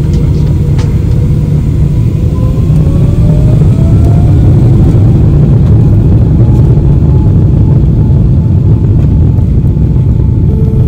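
Boeing 777-300ER's GE90 jet engines spooling up for the takeoff roll, heard inside the cabin. There is a loud, steady low rumble, and an engine tone rises in pitch a few seconds in.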